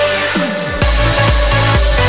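Electronic dance music soundtrack: a falling bass sweep, then a steady heavy kick-drum beat comes in just under a second in, about two beats a second.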